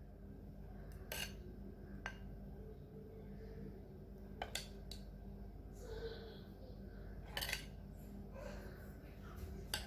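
Faint clinks and taps of a spoon against bowls, a handful of separate knocks spread out, while thick yogurt mixture is transferred into small bowls.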